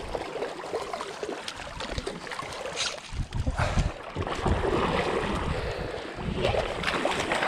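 Stream water splashing and sloshing close to the microphone as a trout is brought into a landing net, with wind buffeting the microphone in low rumbles.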